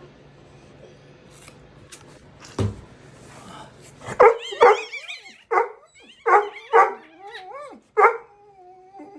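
Newborn Cane Corso puppy crying in a series of short, high-pitched squeals with wavering pitch, starting about four seconds in, after a single thump. Loud crying like this is the sign of a newborn pup breathing and vigorous.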